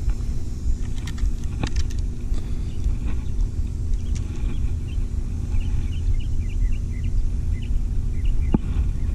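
Steady low outdoor rumble with a faint hum, a few small knocks as a bass and a hand-held scale are handled, and a short run of faint high chirps partway through.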